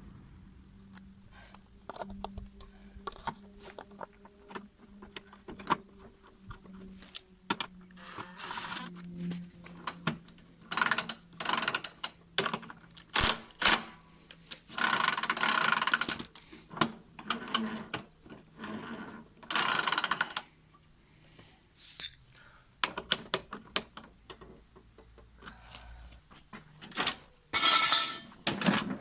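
Hand tools and metal wheel parts clicking, clinking and rattling while a mower's rear wheel is fitted, broken by several longer rasping stretches.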